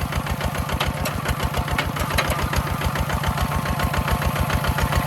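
Tractor engine running steadily with an even, rapid knocking beat.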